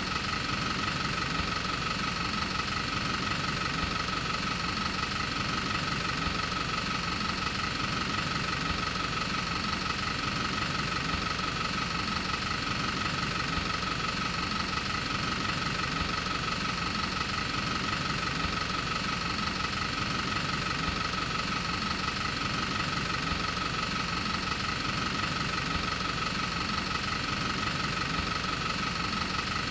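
Film projector running steadily, with a fast, even clatter from its film-advance mechanism under a steady high whine.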